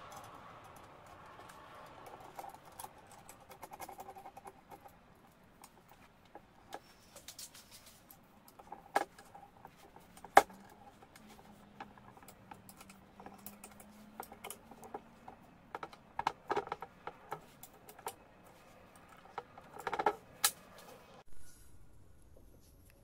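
Scattered clicks, taps and clinks of steel parts being handled and fitted by hand onto an angle grinder's mounting bracket, with a few sharper metal clicks; the grinder itself is not running.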